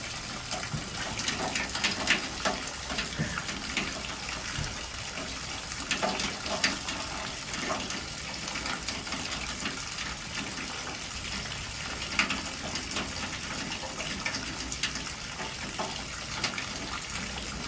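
Heavy rain falling steadily, splattering in many small sharp drips, with water gushing from overflowing gutters.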